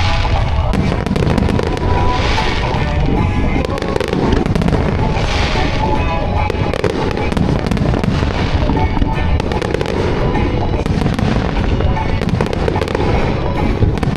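Aerial fireworks of a musically synchronised display bursting and crackling in quick succession, with swells of dense crackle every two to three seconds. A pop song plays loudly with the show.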